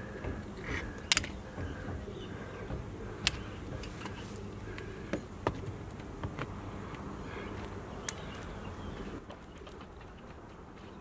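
A plastic calcium inhibitor filter being screwed by hand onto a brass pipe fitting: scattered sharp clicks and taps of plastic on metal over a steady low hum, which drops in level near the end.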